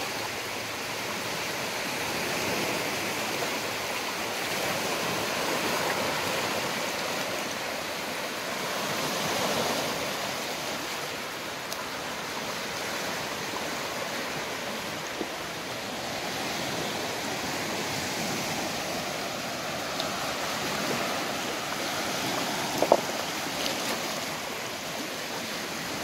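Small waves lapping and washing over a flat rocky lakeshore: a steady rushing that swells and eases gently, with one sharp click a little before the end.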